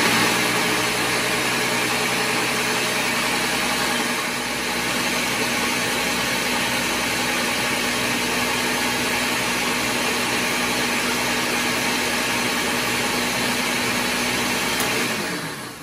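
High-power countertop blender running at full speed, puréeing cauliflower with a little added water; a loud, steady motor hum that dips slightly about four seconds in and winds down near the end.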